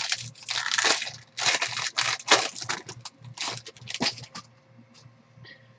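Foil wrapper of a 2015 Topps Chrome Jumbo baseball card pack crinkling and tearing as it is ripped open, in a run of quick crackles that stops about four and a half seconds in.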